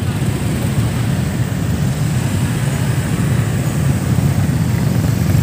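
Steady low rumble of many motorcycle engines crawling along together in a convoy.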